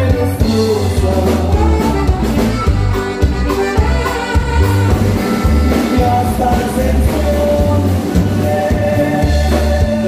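Live norteño dance-band music at full volume, with a steady pumping bass line under the melody.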